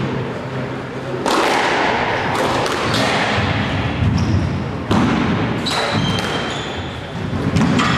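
A squash rally: the ball is struck by rackets and smacks off the court walls with sharp, echoing knocks, about six irregularly spaced over the rally. Short high squeaks of players' shoes on the court floor come in the second half.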